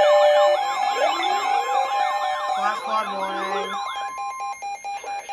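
Several sirens wailing at once, their pitch sweeping quickly up and down and overlapping, over a steady alert tone. About four seconds in the sirens fade out, leaving a pulsing alert tone repeating a few times a second.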